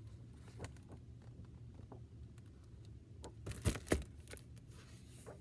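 Pages of a large picture book being handled and turned on a desk: faint paper rustles and small clicks, with two sharp knocks close together about three and a half seconds in, over a low steady room hum.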